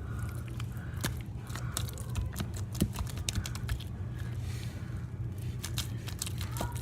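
Hands kneading and stretching freshly activated clear-glue slime, making quick, irregular sticky clicks and pops over a steady low hum.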